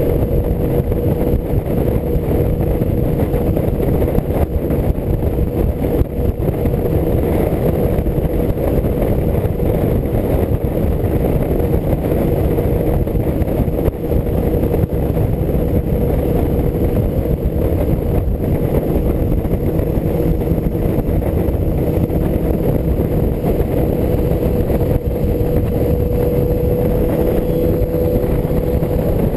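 Motorcycle at a steady freeway cruise: heavy wind rush on the microphone over the steady drone of a 1984 BMW R100RS's air-cooled boxer twin engine, holding an even pitch.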